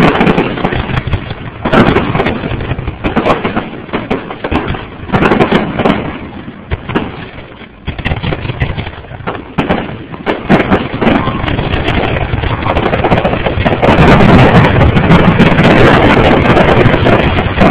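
Aerial fireworks shells bursting in a rapid string of bangs and crackles; about 14 seconds in the bursts come thick and fast into a dense, louder barrage.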